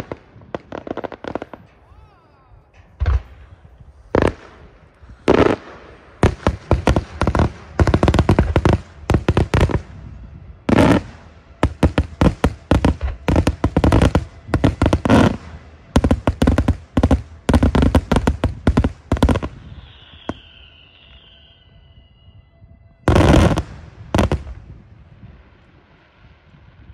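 Daytime aerial fireworks shells bursting in rapid, irregular volleys of sharp bangs and crackling reports, densest through the middle. After a short lull, a couple more loud bangs go off near the end.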